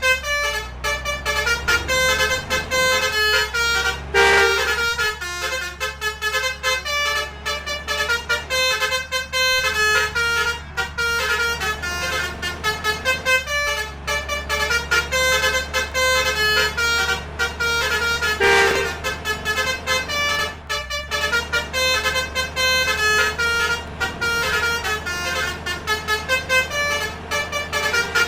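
Basuri 'telolet' multi-tone vehicle horn playing a fast melody of stepped notes without a break, over a low engine hum.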